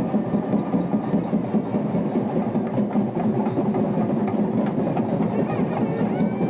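Dense, rhythmic din of festival drumming mixed with crowd noise, beating fast and evenly throughout.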